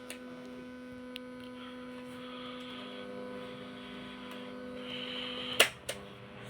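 Cassette player giving a steady electrical hum with faint tape hiss between songs. Two sharp clicks come near the end.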